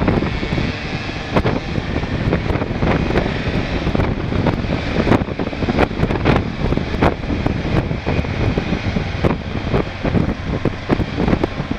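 Motorcycle engine running at low riding speed, a steady drone with many irregular knocks and thumps over it.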